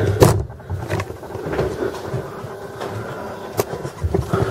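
Handling noise from a handheld camera: a few scattered clicks and knocks over a low rumble and a faint steady hum.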